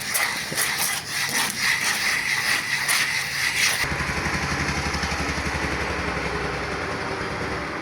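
Harsh, rasping machine noise made of rapid irregular strokes, changing abruptly about four seconds in to a motor running with a fast, low, even pulse.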